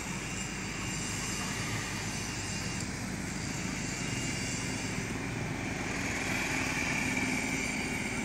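Steady road traffic noise with motorcycle engines running past, and a faint high whine that grows stronger near the end.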